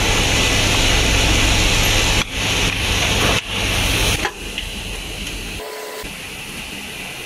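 Steady machinery hum and hiss from a motor assembly line, loud for the first four seconds, then dropping to a quieter hiss.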